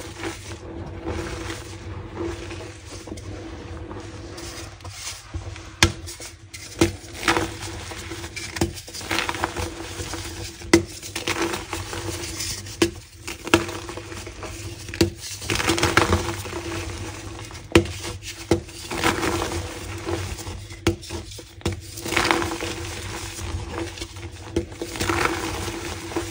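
Molded pink gym chalk being crunched: an irregular run of crisp crunches and crumbling crackles, with a few sharper snaps standing out, over a steady low hum.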